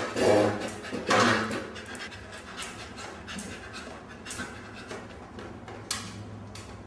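A dog panting in quick, short breaths, with two louder breaths in the first second and a half.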